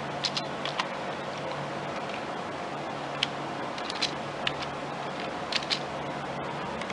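Scattered light clicks, about eight of them at irregular intervals, over a steady low hum.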